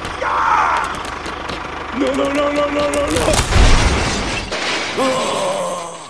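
A crash with a deep boom and breaking noise about three and a half seconds in, as the toy tractor and its trailer tumble off the log bridge into the pit. Held, voice-like tones sound before and after the crash.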